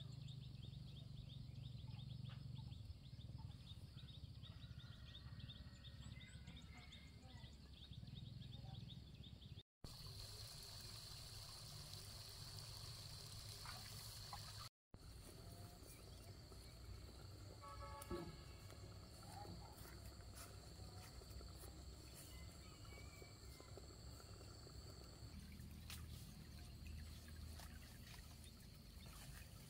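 Faint outdoor countryside ambience: a steady low rumble under a thin, steady high-pitched hum, with a few faint short calls. Just past halfway there is a brief pitched sound. The sound cuts out briefly twice, about a third of the way in and again about halfway.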